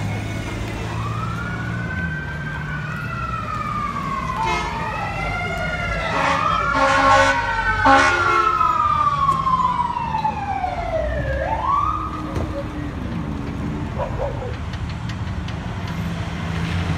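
Fire engine sirens wailing, their pitch rising and falling and overlapping, with a horn sounding in several blasts about six to eight seconds in. A vehicle engine idles underneath, most plainly at the start and end.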